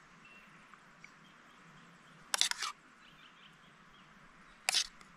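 A spoon clattering and scraping against a Trangia cook-set pot and plate while meatballs are served out: a quick run of knocks about two seconds in, and one more short clatter near the end. Faint bird calls in the background.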